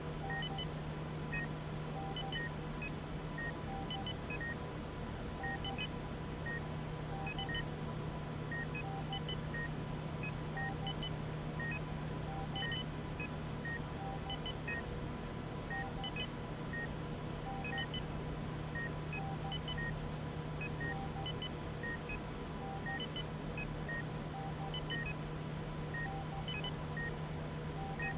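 Hospital hallway ambience: short electronic equipment beeps at a few different pitches, repeating in a steady pattern, over a constant low hum.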